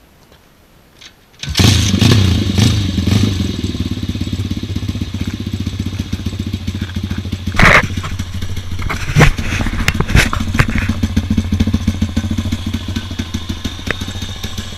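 An engine starts suddenly about a second and a half in and runs steadily, with sharp clicks and clatter over it, then cuts off abruptly at the end.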